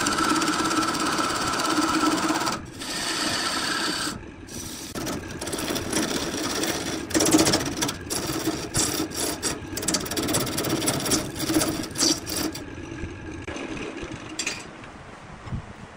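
Wood lathe spinning a large wood-and-resin blank while a hand-held turning tool cuts it: a steady scraping hiss over the lathe's hum, then an uneven run of cuts with short breaks as the tool is worked along. Over the last few seconds the cutting stops and only the lathe spinning is left, quieter.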